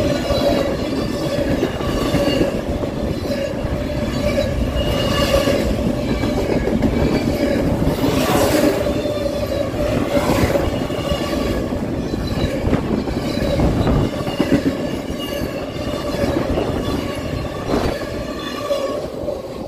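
Intermodal freight cars rolling past close by: a steady rumble and clatter of steel wheels on rail, with a sustained high squeal running through it and a few louder clunks.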